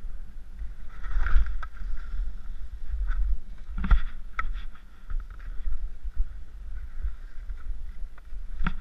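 Skis scraping and shuffling through snow as skiers step along a narrow ridge, with a few sharp clicks of skis and poles on the snow and a steady low wind rumble on the camera microphone.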